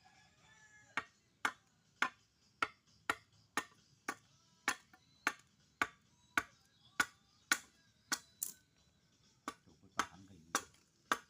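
Wood being chopped by hand, sharp strokes about two a second, with a short pause about eight seconds in.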